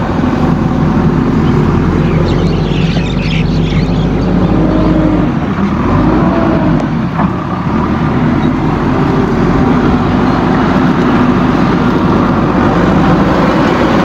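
JCB backhoe loader's diesel engine running loud and steady close by as the machine works through brush.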